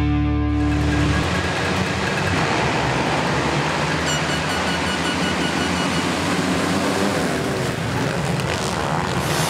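A full gate of motocross bikes revving together at the start line and launching off the start, a dense, steady mass of many engines.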